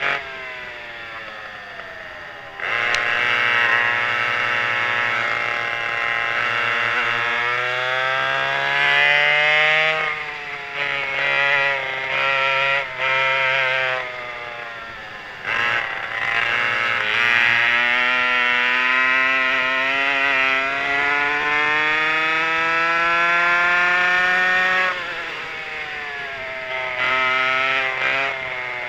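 Twin McCulloch 5.3 ci two-stroke converted chainsaw engines of a vintage rear-engine racing kart, heard from the driver's seat under race conditions. The engines climb steadily in pitch under full throttle, then fall back and quieten when the throttle is lifted, and jump back on suddenly several times, first about two and a half seconds in.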